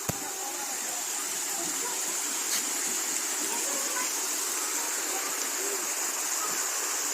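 Steady rush of running water, like a small waterfall or fountain, with faint voices in the background and a single click at the very start.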